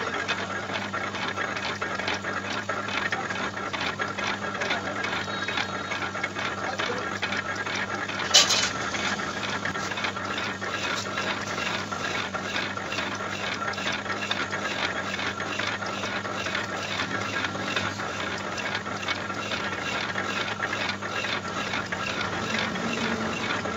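A lathe turning a rotavator gearbox housing while a boring bar cuts its bearing bore wider. The motor and spindle hum steadily, with a fast, regular ticking from the spinning work and the cut. One sharp knock comes about eight seconds in.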